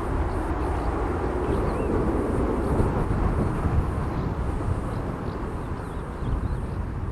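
Boeing 737-800's CFM56 jet engines running as a steady, broad rumble as the airliner climbs away after takeoff, slowly fading near the end.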